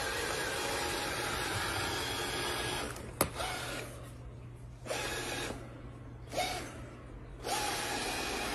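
Steady whirring noise of a small electric motor, with a sharp click about three seconds in; the noise then drops out and comes back several times.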